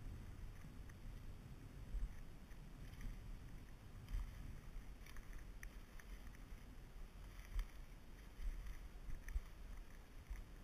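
Faint wind rumble on the microphone of a body-worn camera, with irregular low thumps and scattered soft crackles of footsteps through dry, flattened wheat stubble.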